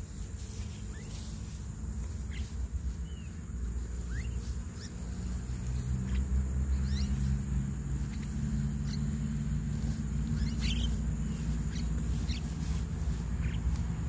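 Short, scattered chirps and squeaky calls from a small flock of mynas feeding on the ground, over a low rumble that grows louder about four seconds in.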